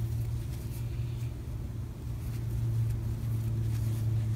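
Steady low background hum, with a few faint light ticks from a steel crochet hook working cotton thread.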